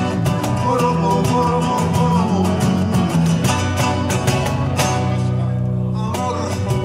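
Latin band playing live: two strummed acoustic guitars over an electric bass line and a steady cajón beat, with a voice singing at times.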